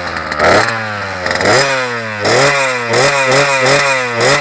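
Water-cooled Blata 40cc two-stroke pocket-bike engine, freshly started and revved in about seven quick throttle blips. Each rev snaps up in pitch and falls back toward idle.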